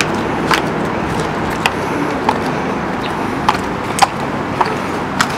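Steady outdoor background noise, broken by about seven short, sharp clicks at uneven gaps of half a second to a second.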